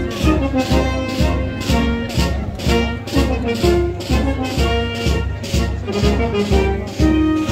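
Brass band music with a steady beat of about two pulses a second.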